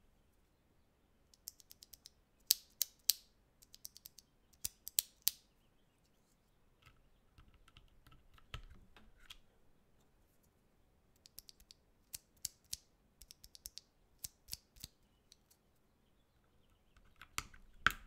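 Gateron Milky Yellow linear switch pressed again and again in a gasket-mounted 65% keyboard with PBT keycaps. Each press gives a short sharp clack on bottoming out and another on the way back up. There are two runs of presses a few seconds apart, with softer fumbling clicks between them, as stock and lubed switches are compared.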